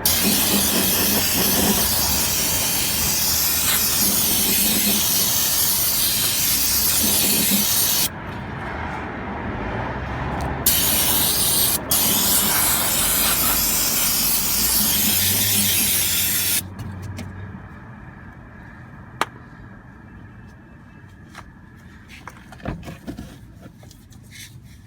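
Aerosol cleaner spraying in two long hissing blasts, the second broken briefly by a short pause. After the spraying stops there are a few faint clicks and knocks.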